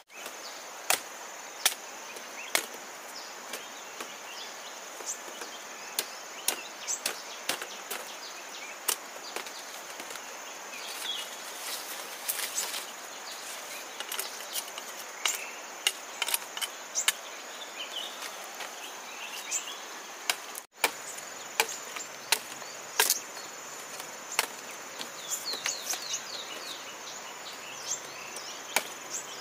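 Long knife chopping and trimming sugarcane stalks: irregular sharp chops and knocks, several a second at times, over a steady high insect drone.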